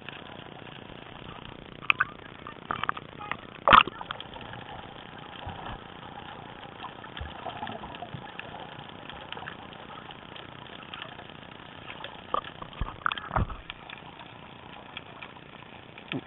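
Muffled underwater sound picked up through a waterproof camera housing while snorkelling: a steady water hiss with a few sharp knocks and clicks, the loudest about four seconds in and two more close together near the end.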